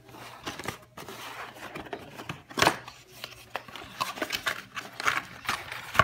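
Small cardboard box being handled and opened, its card flaps and sleeve scraping and sliding against each other as the inner tray is pulled out, in short irregular rasps. One sharper, louder rasp comes about two and a half seconds in.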